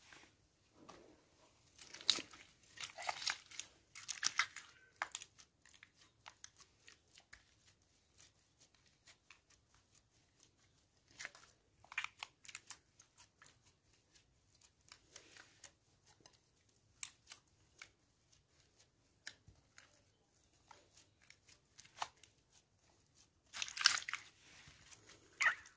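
Pink slime pressed and kneaded by hand against a glass tray: irregular sticky crackles and pops, in dense clusters about two to five seconds in, around twelve seconds, and again near the end, sparser between.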